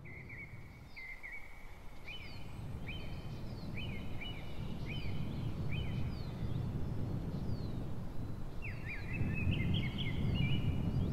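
Small birds chirping in short, quick repeated calls, over a low outdoor rumble that grows steadily louder.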